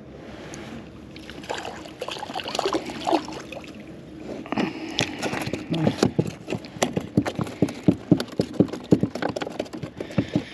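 Water splashing beside a kayak, then a small fish flopping on the kayak's plastic deck: a rapid, irregular run of slaps and thumps, several a second, that grows denser from about halfway in.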